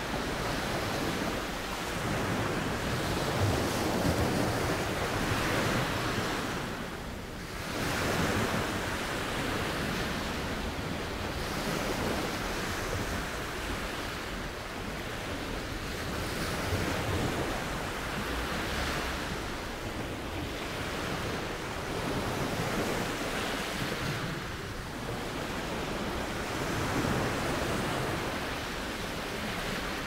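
Waves washing in: a rushing noise that swells and eases every two to three seconds, with a brief lull about seven seconds in.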